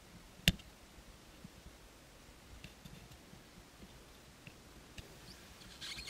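Hands handling a thin glass wide-view mirror against a car's rearview mirror: one sharp click about half a second in, then a few faint ticks, and a brief fabric rustle near the end as a sleeve presses on the mirror.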